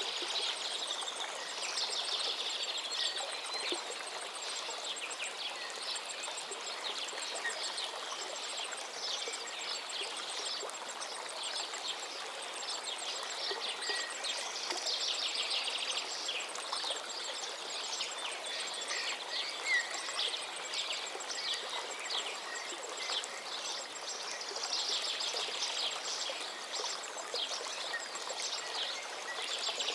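Oil sizzling and crackling steadily in a cooking pan, a dense hiss full of small pops, as the biryani ingredients fry.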